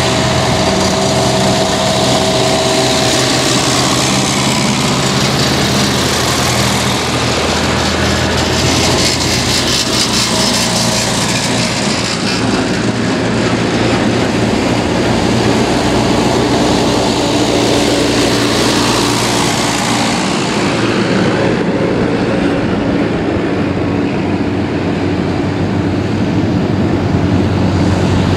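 Engines of a line of vintage farm tractors running steadily as they drive past one after another, the engine note changing as each tractor goes by.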